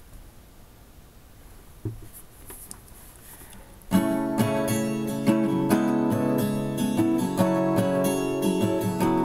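Quiet room with a brief knock about two seconds in, then an acoustic guitar starts strumming chords about four seconds in and keeps a steady strumming rhythm.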